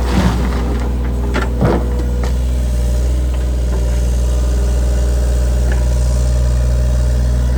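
Engine running steadily at a constant speed, with a couple of short knocks about one and a half seconds in.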